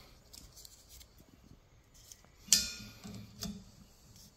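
Plastic clicks and ticks as a car wiper blade is handled against its metal wiper arm. There is one sharp, loud click about two and a half seconds in and a smaller one just under a second later.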